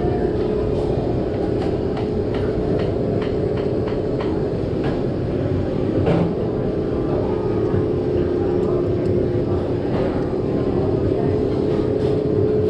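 Steady machine hum holding one constant tone, with faint light clicks and taps scattered through it.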